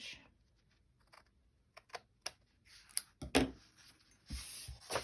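Paper and craft tools handled on a table: a few light clicks and taps, a louder thump about three and a half seconds in, then paper rustling and sliding near the end as a paper pocket is pressed into place.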